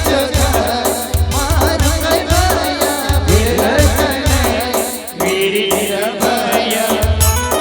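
Timli folk dance music played by a band: a heavy bass beat about once a second under a wavering, ornamented melody line. The bass drops back for a couple of seconds past the middle, then returns.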